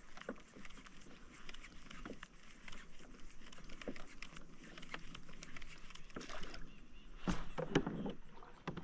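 Small clicks, taps and light water patter around a fishing kayak on calm water, with a louder knock and splash-like thump about seven seconds in.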